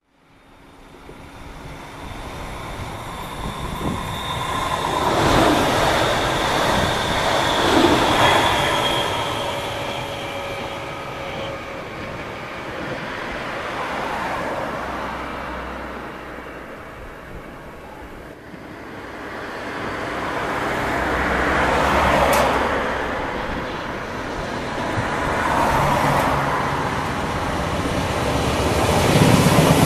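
Railway noise from above the tracks, swelling and fading twice. The first swell, about a fifth of the way in, carries a high whine that dips slightly in pitch. Near the end a red electric multiple-unit passenger train approaches and runs beneath with a motor hum and wheel rumble, growing loudest at the close.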